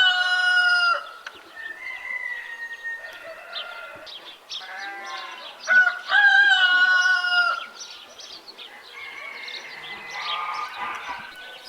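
Rooster crowing twice, each crow about a second and a half long, with softer farmyard bird calls and clucking in between.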